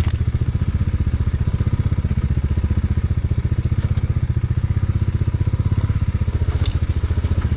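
Motorcycle engine running at low, steady revs, a fast even beat of firing pulses, with a couple of short clicks or rattles from the bike on rough ground.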